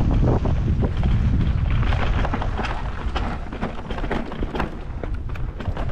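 Wind buffeting an action camera's microphone on a mountain bike riding a dirt singletrack, heard as a heavy low rumble. Frequent short clicks and rattles come from the bike jolting over stones and ruts.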